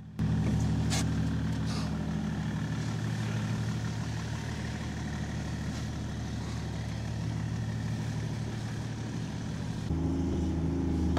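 BMW E39 530d's M57 straight-six turbodiesel engine pulling under load as the car climbs a snow-covered hill, a steady running note that grows louder near the end as the car comes close.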